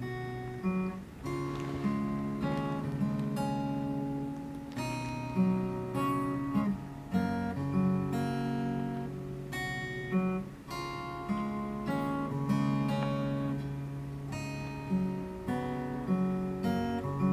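Solo steel-string acoustic guitar playing an instrumental intro: strummed chords that change every half second to a second, each with a sharp attack.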